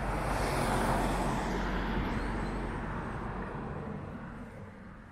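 A car driving past on the road, its tyre and engine noise swelling to a peak about a second in and then fading away.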